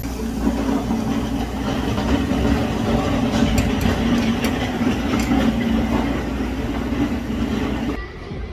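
Steady running noise of a moving vehicle, a low hum over a noisy rush with a few faint clicks. It cuts off abruptly about eight seconds in.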